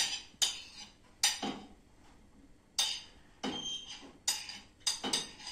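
A metal utensil clinking and scraping against a plate and the small frying pan as finely diced vegetables (peppers first) are pushed off the plate into the pan. It makes about eight short, sharp clinks and scrapes at irregular intervals.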